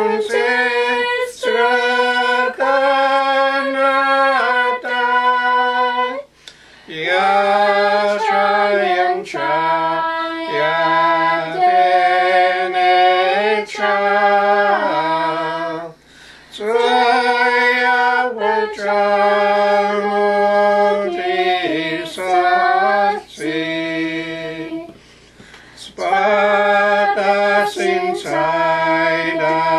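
A small group of voices, women's most prominent, singing a hymn unaccompanied in the Carrier (Dakelh) language, in long phrases of held notes with a few short breaks between lines.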